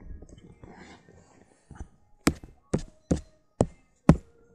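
Five sharp knocks or taps close to the microphone, spaced about half a second apart in the second half and ending with the loudest, after a stretch of faint rustling and handling noise.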